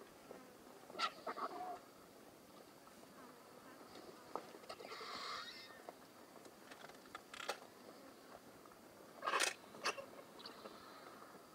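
A group of vultures feeding at a carcass: scattered sharp snaps and short noisy bursts of squabbling and tearing. The loudest burst comes a little after nine seconds in.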